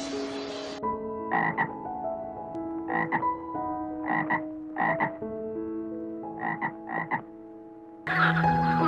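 An animal giving about six short calls, some in quick pairs, over background music with long held notes.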